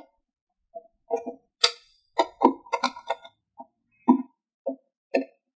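A hand screwdriver turning a screw out of a speaker cabinet's side control panel: a string of short squeaks and creaks as the screw turns, in separate bursts with short gaps between.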